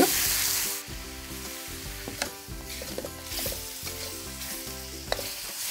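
Chicken stock hitting a hot steel wok of stir-fried chicken and vegetables, giving a loud sizzle that dies down after about a second. A quieter sizzle follows, with metal spatulas scraping and tossing the food in the wok.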